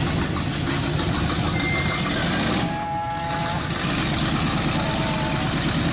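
Lifted pickup truck's engine running steadily under load as the truck churns through a mud pit on large off-road tyres.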